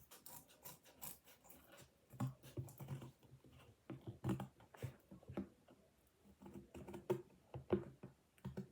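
Scissors cutting in short, irregular snips and crunches. The material is hard to cut through.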